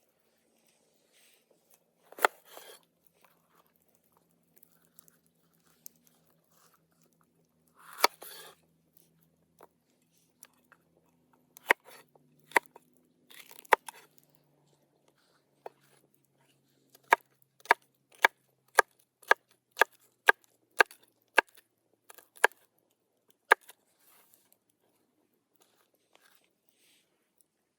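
A knife chopping food on a cutting board: a few scattered crunchy strokes, then a steady run of sharp chops, about two a second, in the second half.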